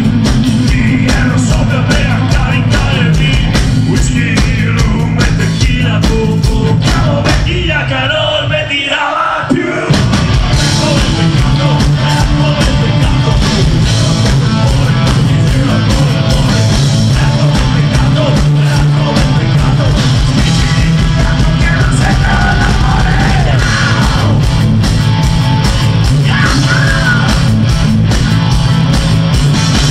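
Live rock band playing loud, with drums, electric guitars and a singer singing and shouting into the microphone. Around eight seconds in the bass and drums drop out briefly, and the full band crashes back in about ten seconds in.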